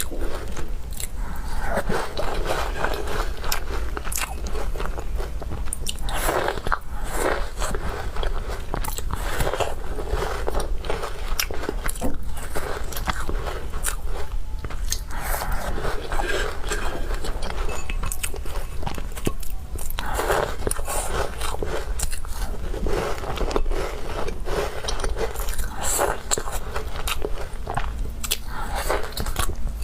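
Close-miked biting and chewing of crumbly walnut cookies, with many short crisp crunches over steady chewing.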